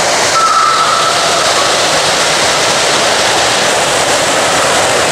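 Steady rush of splashing water from water jets: hot tub jets churning the water, then splash-pad fountain jets spraying up and falling on the wet deck.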